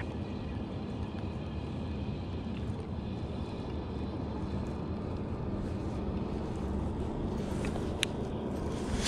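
Steady wind rush and water noise around a fishing kayak on open, choppy water, with a single sharp click about eight seconds in.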